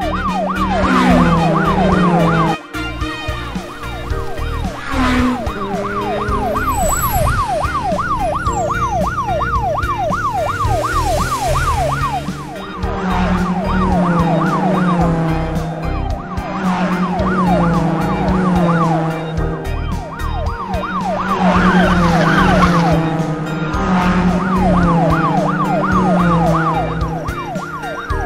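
Fast yelping police siren, its pitch sweeping up and down several times a second, over upbeat background music with a bass line and a steady beat.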